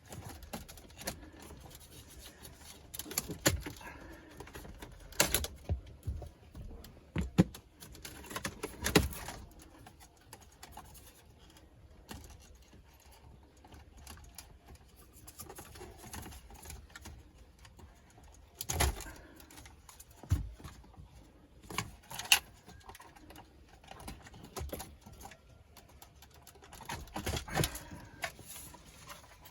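Scattered clicks, taps and knocks of plastic dashboard trim and vent parts being handled and worked loose, in several short clusters with quiet stretches between.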